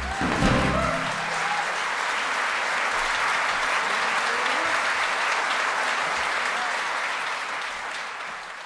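The band and choir's last chord ends about a second in, and a theatre audience applauds; the applause then fades out near the end.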